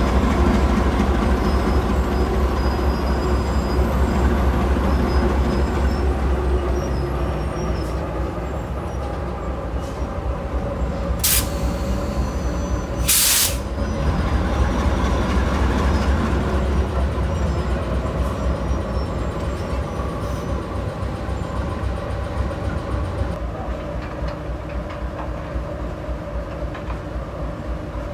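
GE B23-7 diesel locomotive of a work train running with a steady low engine rumble that slowly fades. Two short, sharp hisses come about eleven seconds in and again two seconds later.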